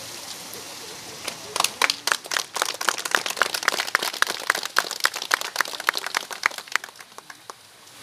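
A small group of people clapping their hands in applause. It starts about a second and a half in and dies away near the end.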